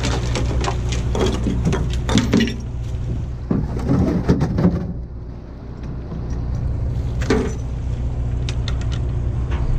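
A boat's engine running steadily, with rattling and scraping as a bottom trawl net and its chains, floats and ropes are paid out over the stern. The rattling comes in spells: through the first couple of seconds, again around four seconds in, and briefly about seven seconds in.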